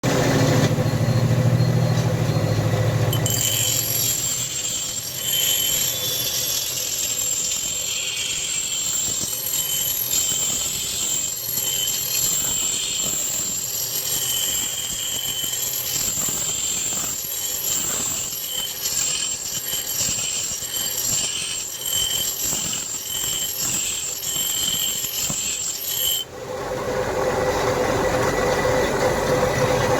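Electric grinder grinding steel from a truck leaf spring, a steady high squeal with a low hum in the first few seconds; the sound changes abruptly about 26 seconds in.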